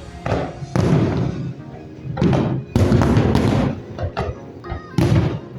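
Loud music with heavy bass, with several sharp firework bangs bursting over it.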